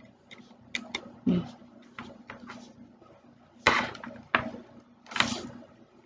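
Handling of a portable hard drive and its USB 3.0 cable as the plug is worked into the drive's socket: small scattered clicks and taps, with three louder short scrapes or rustles in the second half.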